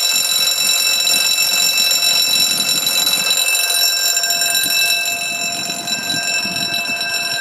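Level crossing's electric alarm bell ringing continuously in one steady clang, warning road users that a train is due and the barriers are coming down.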